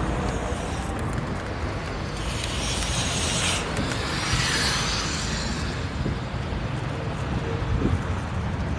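Steady road and traffic noise while riding along a city street, with low wind rumble on the microphone. A hiss swells and fades from about two to five seconds in.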